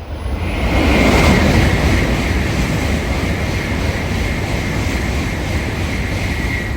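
Shinkansen bullet train passing through the station at speed: a loud rush of air and wheel noise that swells over the first second and then holds steady, with a thin high whine running through it.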